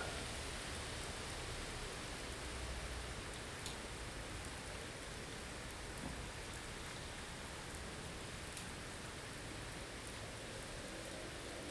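Blizzard ambience: a steady hiss of wind-driven snow with a low rumble underneath and a few faint ticks.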